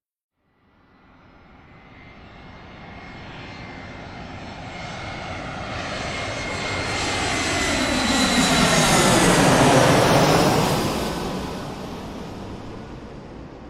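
Airplane flying past overhead. A faint engine rush grows steadily louder to a peak about ten seconds in, with a high whine through it, then fades as the plane moves away.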